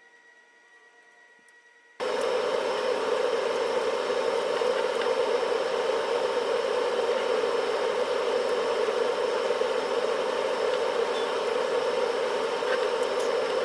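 Air conditioner running: a loud, steady noise that the owner likens to a vacuum cleaner, cutting in abruptly about two seconds in after a quiet start.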